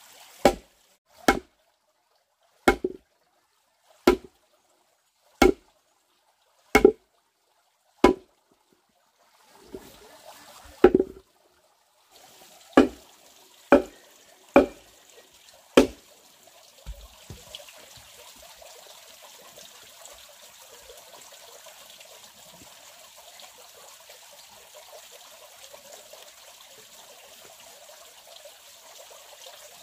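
A tool striking wood in sharp single knocks, about one every second and a half, then a few more at uneven gaps. After about 17 seconds the knocks give way to water trickling steadily.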